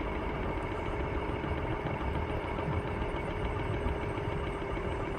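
Bird electric scooter being ridden: a steady low rumble of the wheels on pavement and wind on the microphone, with a faint, even motor whine.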